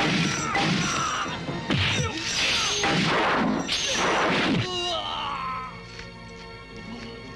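Film fight sound effects: a run of loud crashing hits and blows over the score. About five seconds in, the hits stop and quieter sustained music carries on.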